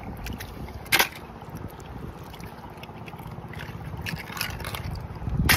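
Hands groping through shallow seawater over rocks and weed, with light splashing and trickling and a steady low rumble of wind on the microphone. Two short, sharp sounds stand out, about a second in and near the end.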